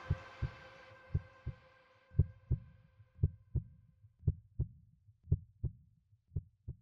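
Heartbeat sound effect: paired lub-dub thumps about once a second, seven beats in all, while the last of the music fades out over the first two seconds.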